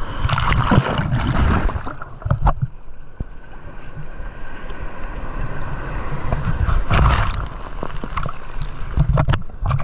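Sea water splashing and sloshing against a GoPro in its waterproof housing as it moves through small, choppy surf, over a constant low rumble of water and wind on the housing. The splashing comes in bursts, heaviest in the first two seconds and again about seven and nine seconds in.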